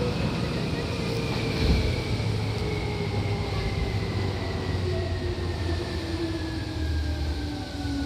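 Seibu old-type 2000-series electric train heard from on board: traction motor whine in several tones falling steadily in pitch as the train slows, over a low rumble of the wheels on the rails.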